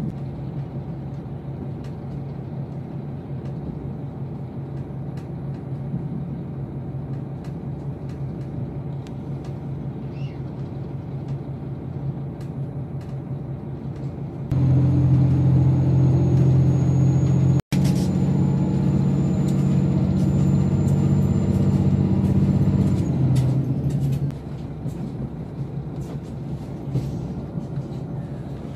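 Diesel railcar engine heard from inside the carriage, running with a steady low hum. About halfway through it opens up, louder and fuller with a thin high whine, for about ten seconds, then drops back to its lighter running. There is a brief cut-out in the sound in the middle of the louder stretch.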